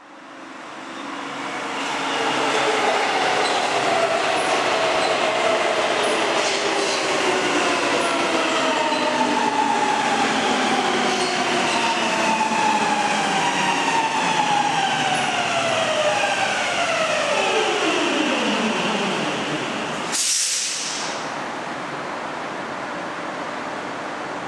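An M100-series Helsinki Metro train pulls in and brakes to a stop. It grows louder over the first couple of seconds. A cluster of whining tones from the traction motors and gears falls steadily in pitch as it slows, then drops steeply just before it halts. About twenty seconds in there is a short, sharp hiss of air, then a steady, lower hum as the train stands.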